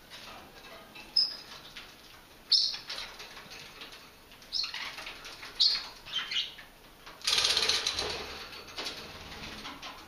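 Budgerigars squabbling: four sharp squawks spread over the first six seconds over soft chatter, then about seven seconds in a burst of wing flapping lasting over a second.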